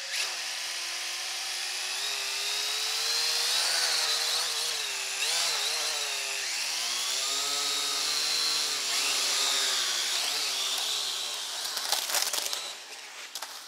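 Small toy quadcopter's electric motors and propellers whining, the pitch rising and falling with the throttle, flying on a propeller with a chipped blade and motor trim set to compensate. A short clatter near the end.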